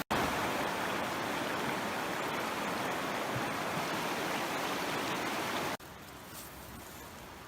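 Steady rushing of a nearby creek, an even hiss of flowing water. About six seconds in it drops suddenly to a much quieter hiss.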